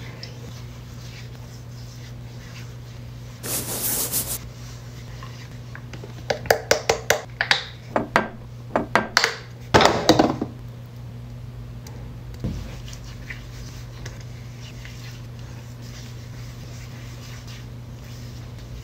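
Skincare bottles and caps handled at a bathroom sink: a quick run of sharp clicks and knocks about halfway through, with a short hiss earlier, over a steady low hum.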